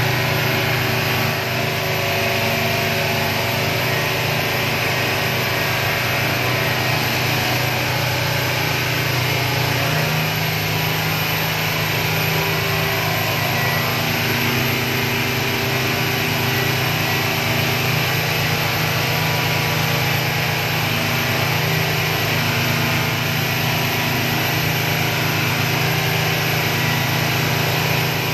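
Motorboat under way: its engine runs steadily with a low hum, over a broad rush of wind and water from the hull and wake. The engine hum grows louder about ten seconds in.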